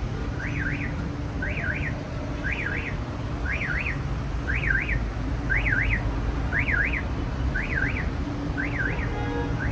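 Car alarm sounding: a warbling tone that sweeps up and down twice in quick succession, repeating about once a second, over the steady rumble of street traffic.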